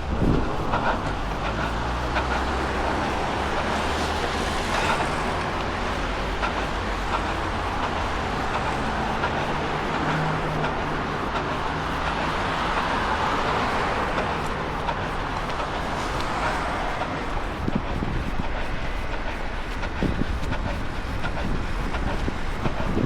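Wind buffeting a small action camera's microphone during a run, over steady street traffic noise; a vehicle passes, its sound swelling through the middle and fading again.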